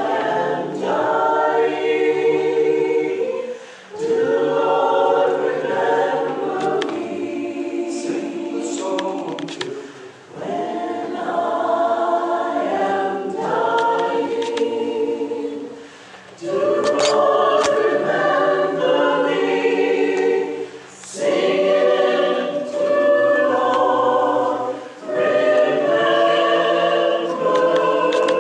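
Mixed-voice choir singing in phrases of a few seconds each, with brief pauses between them.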